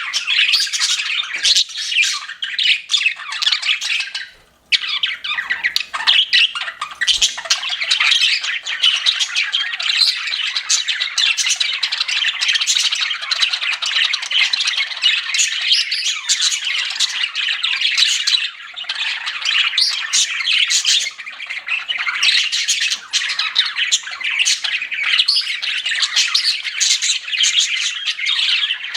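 Several pet budgerigars chirping and chattering, many calls overlapping in a dense, continuous stream, with a brief lull about four and a half seconds in.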